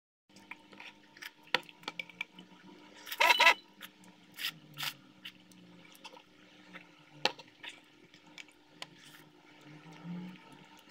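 Someone eating instant noodles: scattered clicks and scrapes of a plastic spoon against a ceramic bowl, with wet slurping and chewing. The loudest sound is a short noisy burst about three seconds in, and a softer slurp comes near the end.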